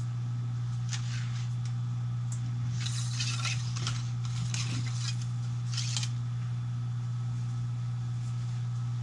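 Cleaning rod pushing a dry cleaning patch through the barrel of a 6.5 Creedmoor bolt-action rifle: a few short, soft scraping rustles between about one and six seconds in, over a steady low hum.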